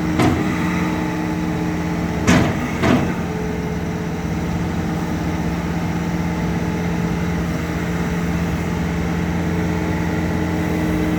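Bobcat T76 skid steer's diesel engine running steadily, with three short sharp knocks: one right at the start and two about two and a half to three seconds in.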